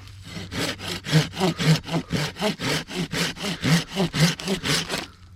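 Hand saw cutting into old resinous pine to get out fatwood, with quick even back-and-forth strokes, about five a second, that stop shortly before the end.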